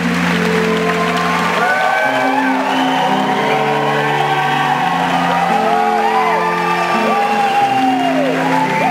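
Live band music with long held chords, and an audience cheering over it with many high whoops that rise and fall, mostly from about two seconds in.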